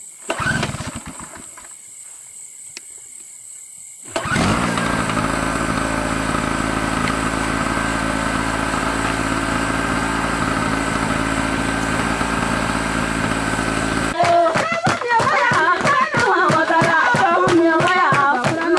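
An engine running steadily, cutting in suddenly about four seconds in. Near the end it gives way to group singing with music.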